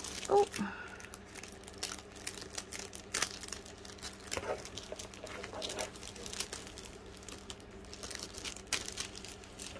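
Clear plastic sticker packets crinkling and rustling as hands sort through them in a cardboard box, in irregular small crackles.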